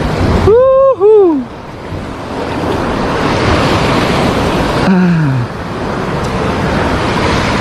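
Surf from big waves breaking on the seashore, a rushing wash of noise that swells from about two seconds in.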